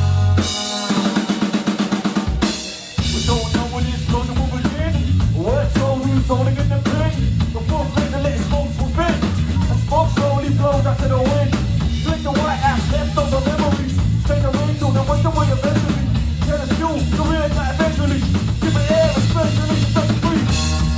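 Live band playing an instrumental passage on drum kit, bass guitar and keyboards. About a second in the bass drops out under a rapid drum fill, and the full band comes back in around three seconds, with a wavering melodic line over a driving bass and drums.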